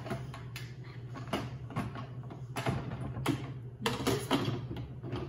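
An Instant Pot lid being pushed and twisted onto the hot pot through a kitchen towel, scraping and clicking against the rim in a string of short strokes as it resists seating.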